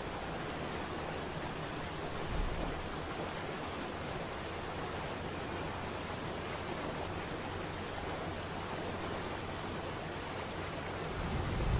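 Waterfall: a steady rush of falling water, with a brief low rumble a couple of seconds in and another swelling near the end.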